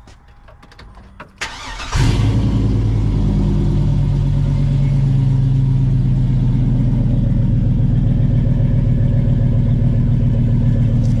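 A truck engine cranks and catches about two seconds in, then idles steadily on fresh oil just after an oil change. The owner says it sounded good and was running like a champ.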